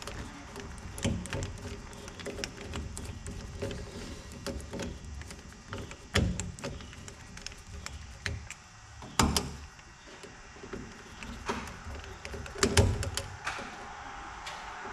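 Irregular clicks, taps and knocks of hand work: tools and small parts being handled, with louder knocks about six, nine and thirteen seconds in.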